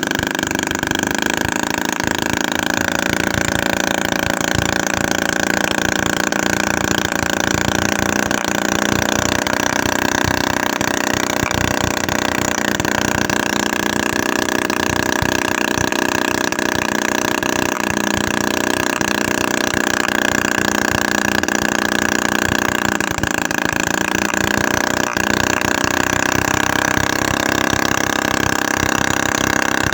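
Homemade 7cc two-stroke engine, built from a used refrigerator compressor, running steadily at high speed with a buzzing engine note. Its speed dips briefly about three quarters of the way through, then picks up again.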